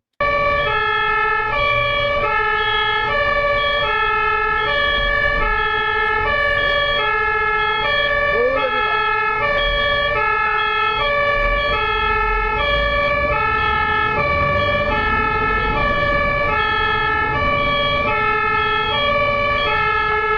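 German ambulance two-tone siren (Martinshorn) sounding its steady high–low alternation, starting abruptly, with road rumble beneath.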